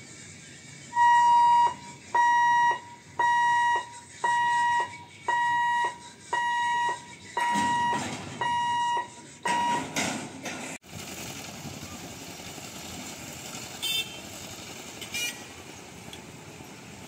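Level-crossing warning hooter sounding about nine steady beeps, roughly one a second, while the boom barriers come down. It stops abruptly and gives way to steady background noise from motorcycles and light traffic at the crossing.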